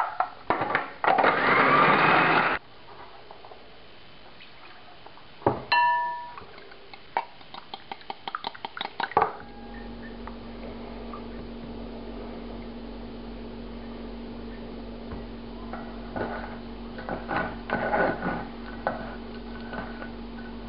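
A food processor runs for about a second and a half, chopping onion into breadcrumbs, and then stops abruptly. A few seconds later there is a ringing clink and some small clicks and taps, then quieter handling sounds over a steady low hum.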